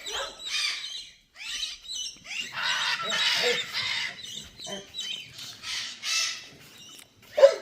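Blue-and-gold macaw giving a string of harsh squawks and shorter calls, the longest about three seconds in and another around six seconds.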